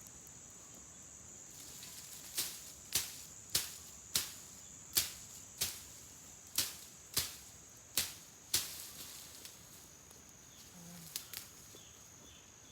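A hand blade chopping through long grass: about ten sharp strikes at a steady pace of roughly one every 0.6 s, then a pause and two fainter strikes. A steady high-pitched insect drone runs underneath.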